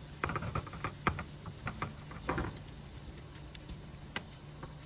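Silicone spatula tapping and pressing against a nonstick frying pan as a cabbage and egg mixture is pressed flat: a quick run of light, irregular clicks for the first couple of seconds, then only a few scattered clicks.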